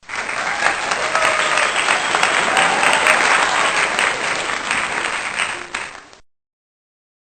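Crowd applauding, dying away after about six seconds.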